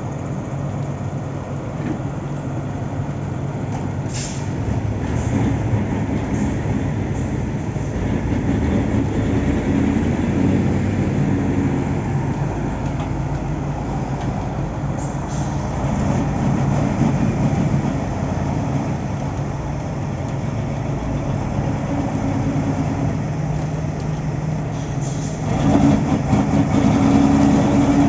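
Heavy diesel construction machinery running steadily, its engine note rising for a while about a third of the way in and again near the end.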